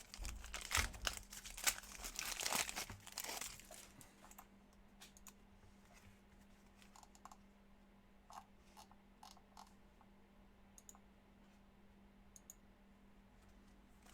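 A trading-card pack wrapper being torn and crinkled open for the first three seconds or so. It is followed by faint scattered clicks and taps of cards being handled.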